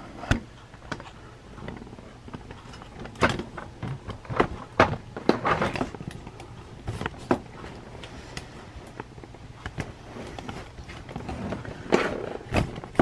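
Handling noises: irregular knocks, clicks and rustles as a heavy round desk clock is shifted about on a cardboard box.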